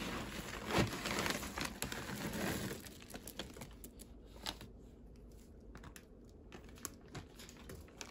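A plastic bag of litter pellets rustling and crinkling as a hand and plastic scoop dig into it, then quieter, with a few scattered clicks of pellets against the plastic.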